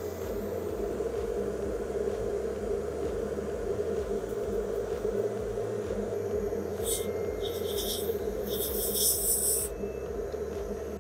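Hot-air rework station blowing steadily, a continuous hiss with a constant hum in it, during the soldering of a boost coil onto a phone logic board. Several short scratchy sounds come near the end.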